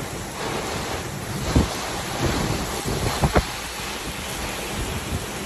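Heavy rain pouring down steadily, with wind rushing across the microphone; a few low thumps come about one and a half seconds in and twice just after three seconds.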